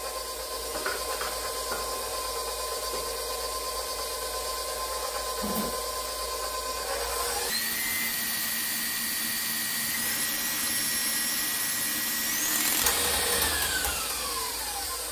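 Stand mixer motor running with its dough hook, beating eggs into a liquid dough base: a steady whine that jumps to a higher pitch about halfway through, then falls away as the mixer slows near the end.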